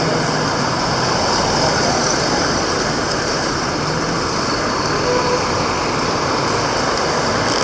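Steady street traffic noise from congested, slow-moving vehicles: engines running in a continuous wash of sound.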